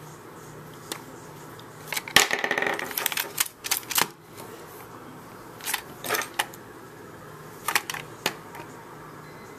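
Irregular clicks, knocks and a short scraping clatter of a Torx screwdriver working at a stubborn screw in a plastic Xbox 360 controller shell, with the plastic being handled. The densest scrape comes about two seconds in, with smaller clusters of clicks later.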